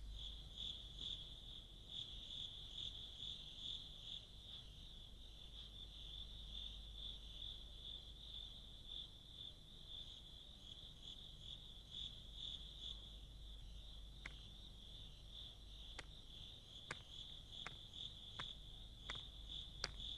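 Crickets chirping in a faint, steady, high-pitched pulsing trill, with a few light sharp clicks in the later part.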